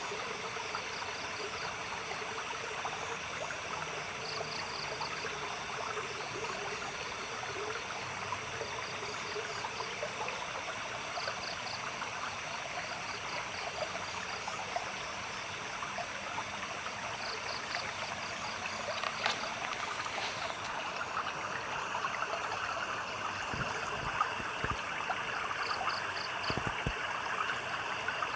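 Stream water trickling steadily, with a short, high pulsed chirp from a small night animal repeating every few seconds.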